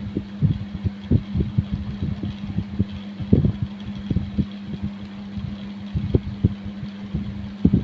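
Irregular short rubbing strokes, roughly two a second, typical of a coin being scraped over skin during kerokan, over a steady low hum.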